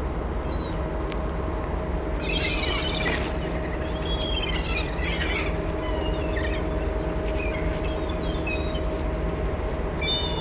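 Gulls calling in high, squealing bursts, clustered about two seconds in and again around four to five seconds, with scattered single calls after. Under them runs a steady low machine hum with a constant tone.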